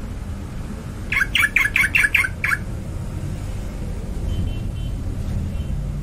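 A bird calling: a quick run of six chirps, each falling in pitch, about a second in, over a steady low rumble.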